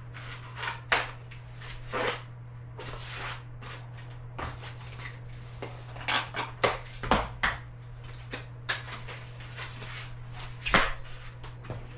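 Packing material being stripped off a new e-bike: irregular rustling and crinkling of foam and plastic wrap, with scattered knocks and clicks as the pieces come away from the frame and wheels, over a steady low hum.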